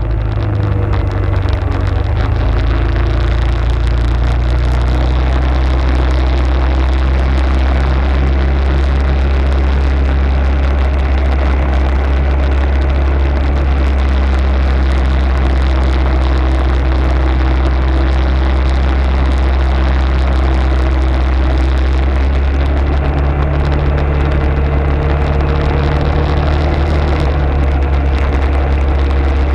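Arctic Cat ATV engine running steadily while riding, its pitch stepping slightly higher about three quarters of the way through.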